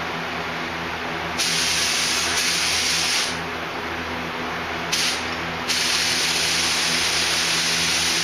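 Compressed-air paint spray gun spraying a coat, likely clear coat, in three trigger pulls: a hiss of about two seconds, a short burst, then a longer hiss running on past the end, over a steady low hum.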